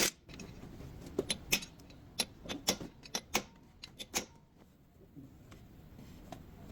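A run of sharp, irregular clicks, about a dozen over three seconds, then a faint low background.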